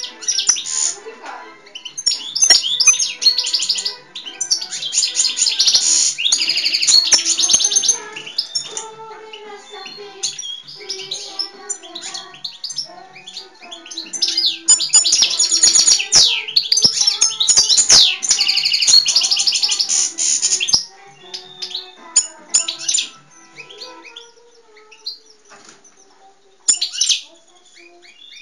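European goldfinch singing in a cage: fast, twittering, trilling song in two long bursts, with shorter phrases between them and near the end.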